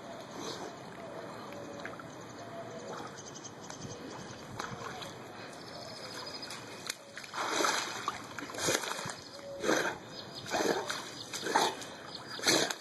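Water splashing: a Labrador paws and plunges in the water, making about six splashes roughly a second apart that start about halfway through, after a quieter stretch of low water noise.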